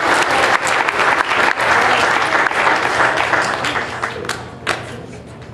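Audience applauding: dense clapping that thins out and dies away in the last second or so.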